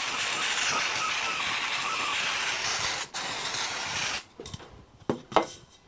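Aerosol spray can hissing in a long blast into the cylinder block, with a brief break about three seconds in and a shorter second blast that stops about a second later. A few light knocks follow near the end.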